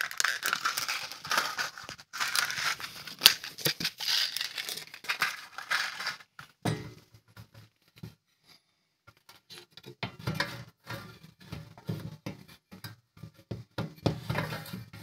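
Small plastic bag of screws crinkling as it is opened and handled for about the first six seconds, then sparse clicks and taps of a hand screwdriver fitting a screw into a metal drive frame.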